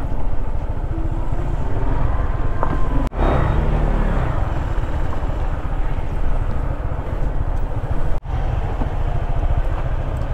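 Wind rushing over the microphone on a moving Honda ADV 150 scooter, with its 149 cc single-cylinder engine running underneath. The sound drops out for an instant twice.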